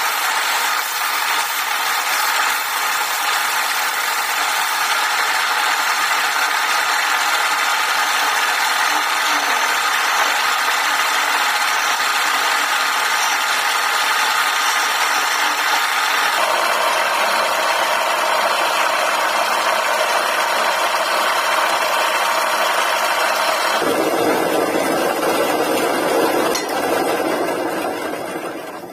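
Wood lathe running steadily with a wooden spindle turning in it, as sandpaper and then a turning chisel are held against the spinning wood. The sound changes abruptly about two-thirds through and again near the end.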